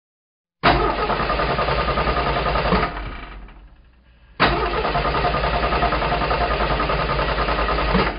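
Go-kart engines running with a steady pulsing beat. The sound cuts in abruptly, fades away about three seconds in, returns abruptly a little after four seconds and stops abruptly at the end.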